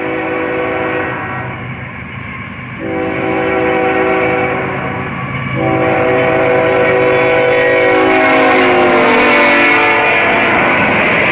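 Freight train's locomotive horn sounding for a grade crossing. The first blast ends about a second in, the second is a long blast, and the third, longer blast drops in pitch as the locomotive passes. After that comes the steady noise of autorack freight cars rolling by.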